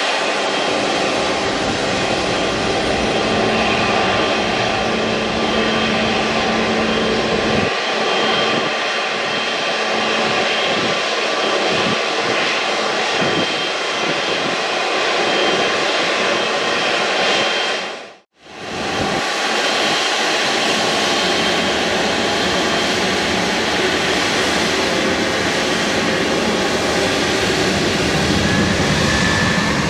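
Airliner engines, a loud, steady noise that keeps going. It breaks off for an instant about two-thirds of the way through, then carries on with another aircraft's engine noise.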